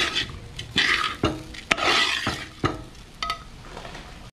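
A long-handled metal spatula is stirring and scraping rice through a large metal pot, in repeated strokes about two a second with sharp clinks of metal on metal. The strokes ease off near the end.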